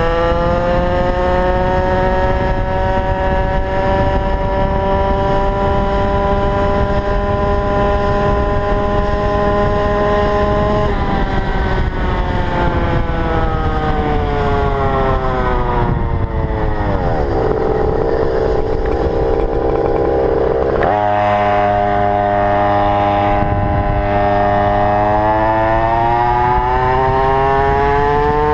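Small two-stroke GoPed GP460 scooter engine being ridden. It revs up and holds high revs for about ten seconds, then drops back and runs rough at low revs. A few seconds later the sound changes suddenly and the engine revs up again near the end.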